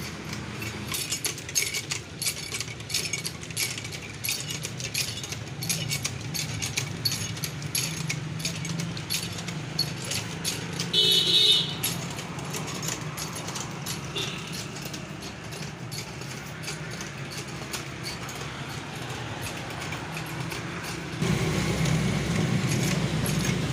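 Steady roadside ambience with traffic passing and scattered clicks, and a short high-pitched beep about eleven seconds in. Near the end it grows louder as a hand pump's stream of water pours and splashes.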